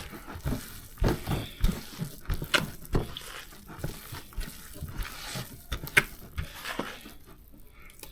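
Thick bhajia batter being mixed by hand in a bowl: irregular wet squelches and knocks, quieting near the end.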